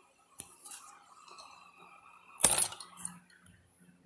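Ignition key of a Honda Rancher ATV being turned off, with small metallic clicks and the key ring clinking. A sharp clack about two and a half seconds in is the loudest sound, followed by a few lighter clicks.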